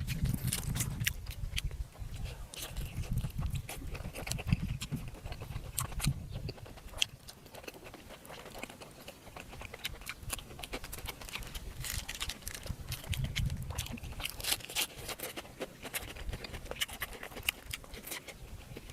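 Chewing and smacking sounds of someone eating: a dense, irregular run of small mouth clicks.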